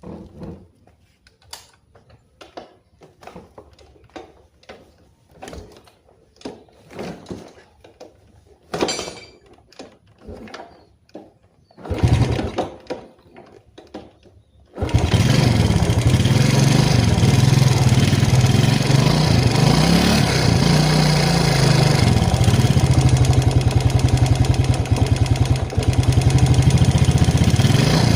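A Yamaha Jupiter Z Robot's small single-cylinder four-stroke engine starts about 15 seconds in, after scattered knocks and a brief louder burst, and idles with a rapid, even 'tak tak tak' ticking. The owner puts the ticking down to a worn camshaft.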